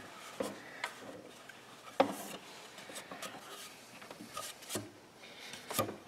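Plastic engine cooling fan being handled and worked into place near the pulleys, rubbing and knocking lightly against parts, with a few clicks and one sharper knock about two seconds in.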